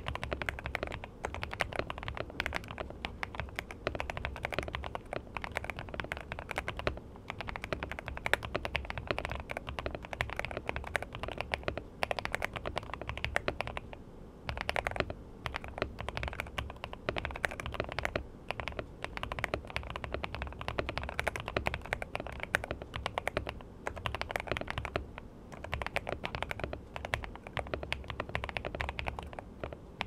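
Fuhlen H75S mechanical keyboard with lubed KTT Strawberry linear switches, fully foamed and tape-modded, with PBT keycaps, typed on fast and continuously. A dense stream of key clacks with a few short pauses.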